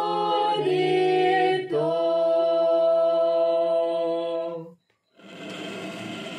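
Small unaccompanied group of a woman and children singing the last words of a Cebuano hymn, ending on a long held note of about three seconds. After a brief pause comes a softer noise without pitch.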